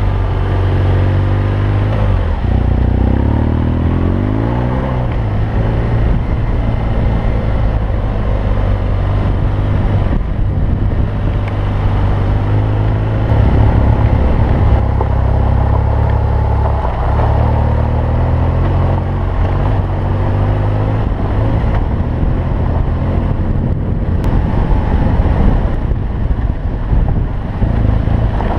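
BMW R1200GS boxer-twin motorcycle engine running under way off-road, with revs changing, including a rise in pitch a few seconds in.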